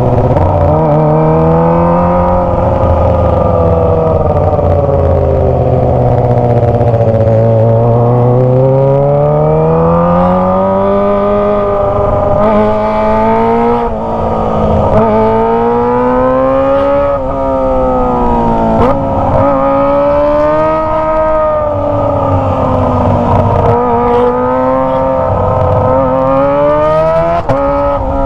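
Kawasaki ZX-25R's inline-four engine through a Toce aftermarket exhaust, running under way. The engine note rises and falls over and over as the rider opens and closes the throttle, in slow swells at first and in quicker climbs with sudden drops later on.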